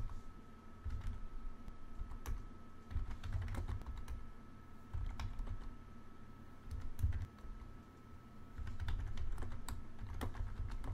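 Typing on a computer keyboard: irregular key clicks in short runs and pauses, entering terminal commands, over a faint steady whine.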